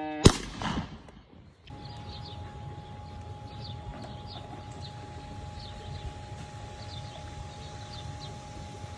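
A single rifle shot about a third of a second in, with a short echo. After a break, small birds chirp over a steady hum and a low rumble.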